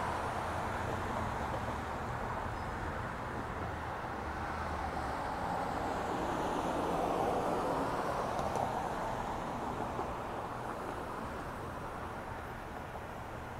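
Road traffic passing on the street below: a steady rush of tyres and engines that swells about halfway through as a vehicle goes by, then eases off.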